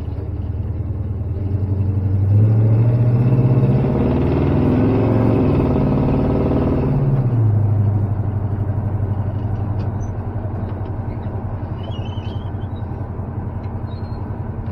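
Old farm truck's engine and drivetrain heard from inside the cab while driving. The engine note grows louder about two seconds in, stays strong with a wavering pitch, then eases back about seven seconds in to a steady cruise.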